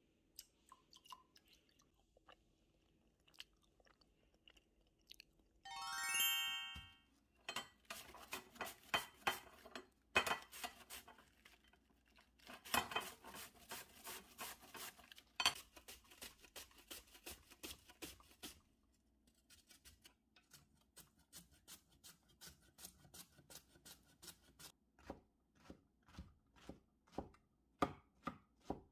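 A short bright chime about six seconds in. Then cabbage is grated on a flat stainless-steel grater in rapid scraping strokes for about ten seconds. After a brief pause, a chef's knife chops mushrooms on a cutting board in steady, quick taps.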